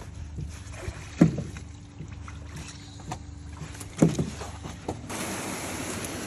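Two sharp knocks from a sturgeon being handled on a plastic grid, over a low steady hum. About five seconds in the sound switches to a steady outdoor hiss.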